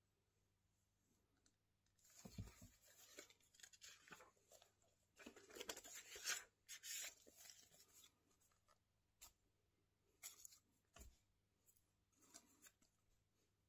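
Quiet paper rustling and crinkling as the pages of a spiral-bound notepad are flipped over. It comes in irregular bursts starting about two seconds in and thins out after about eight seconds to a few separate soft taps.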